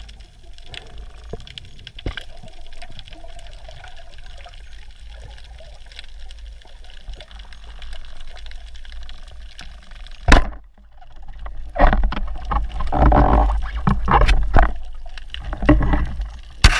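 Underwater sound picked up by a camera on a speargun: a low steady hiss with faint scattered crackles, a sharp click about ten seconds in, then louder irregular scraping and rustling as the gun and camera brush through seagrass.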